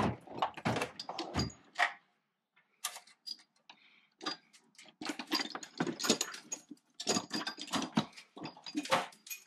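Chrome sockets and hand tools clinking and rattling against each other as a hand rummages through the drawers of a metal tool chest: a run of short, sharp metallic clicks, sparser in the middle and denser in the second half.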